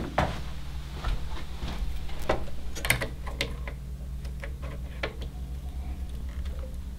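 Irregular light clicks and taps of computer hardware being handled during assembly, over a steady low hum.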